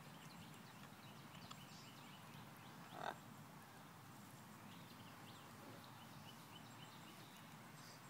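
Near silence: faint outdoor ambience with soft scattered chirps, and one short noise about three seconds in.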